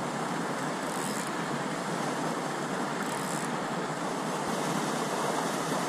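Steady rush of creek water running over rocks, an even hiss with no breaks.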